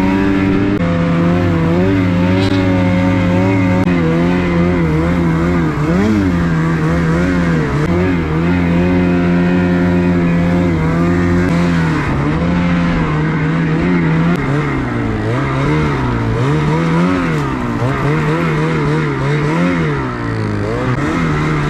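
Snowmobile engine running under way on a snowy trail, its pitch rising and falling with the throttle, steadier in the first part and swinging up and down more often later on.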